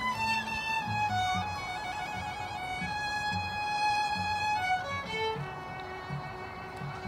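Bowed string trio of violins and a cello playing a piece, the violins holding long notes over a moving cello line.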